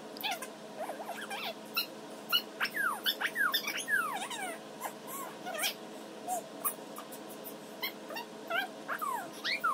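Munchkin cat eating a churu lick treat, giving many short, high squeaky whines that slide down in pitch, in quick runs, among small wet licking clicks.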